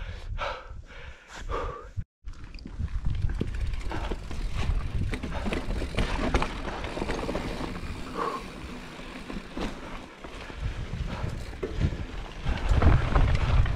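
Giant Reign 29 mountain bike rolling down a dirt singletrack: tyre noise on the trail with a steady patter of small clicks and rattles from the bike, and wind buffeting the camera microphone. The wind rumble grows louder near the end as speed picks up.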